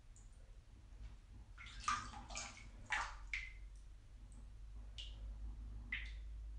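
A series of irregular water-drop plinks, each a short bright drip sliding in pitch, quick and clustered at first and then more spaced out, over a steady low hum.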